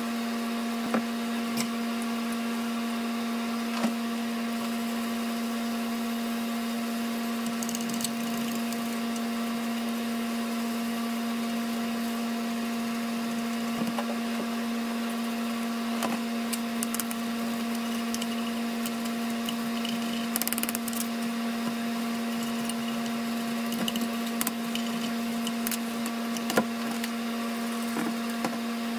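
Steady, unchanging motor hum, with a few sharp clicks and a couple of short hisses from a trigger spray bottle being sprayed.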